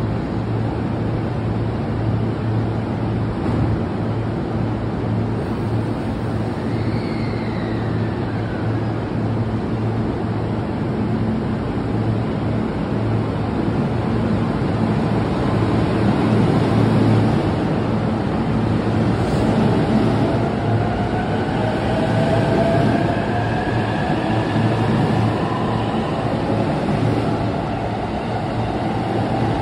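JR East E531 series electric train standing at the platform with a steady hum, then pulling away. Its inverter and traction motors give a whine that rises in pitch over the last third as it gathers speed, over wheel and rail noise.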